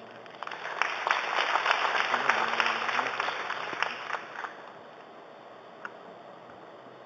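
Audience applauding: many hands clapping together for about four seconds, swelling quickly and then dying away to a few last scattered claps.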